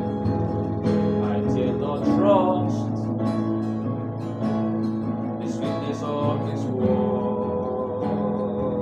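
Hymn music: acoustic guitar playing, with a voice singing a slow melody.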